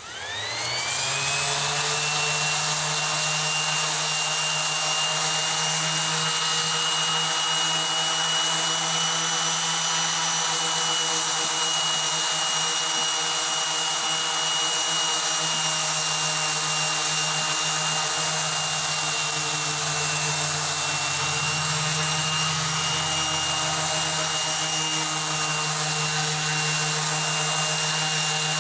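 Harbor Freight 5-inch random orbital palm sander switched on, its whine rising as the motor spins up in the first second, then running steadily while sanding a scrap 2x4 with an 80-grit pad.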